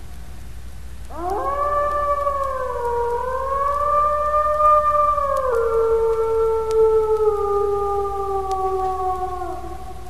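A wolf howling: after the fading end of an earlier howl, one long howl rises about a second in and holds with a slight waver, then drops suddenly to a lower pitch about halfway through and slides slowly down until it ends near the close.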